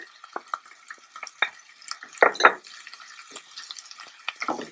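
Tofu and vegetables sizzling in very hot oil in a skillet or wok, with the scrapes and clacks of a utensil stirring them, loudest about two and a half seconds in and again near the end.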